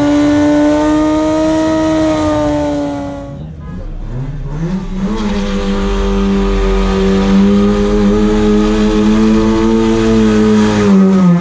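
Car engines held at high revs during burnouts, over the hiss of spinning tyres. The first holds a steady high note for about three seconds, then cuts out. A second engine revs up and holds steady revs for several seconds, dipping slightly near the end.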